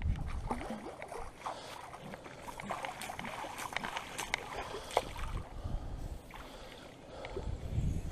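Water sloshing and splashing in small irregular bursts, with light knocks, as a magnet-fishing magnet and its wet rope are worked through shallow water.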